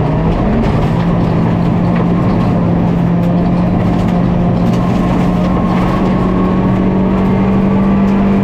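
Volkswagen Polo GTI R5 rally car's turbocharged four-cylinder engine pulling hard at high revs in one gear, its note climbing slowly and steadily, heard over road and tyre noise.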